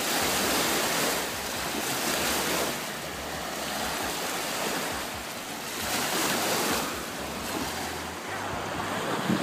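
Small lake waves washing onto a sandy beach, a rushing noise that swells and eases every few seconds, with wind buffeting the microphone.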